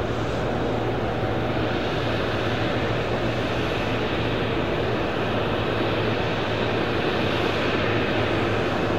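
Sukhoi Superjet 100's twin PowerJet SaM146 turbofans running at taxi power: a steady engine noise with a low hum and a faint high whine.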